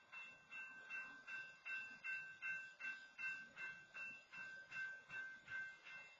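Railroad grade-crossing warning bell ringing steadily at about two and a half strikes a second, faint, as it keeps sounding while a stopped freight train occupies the crossing.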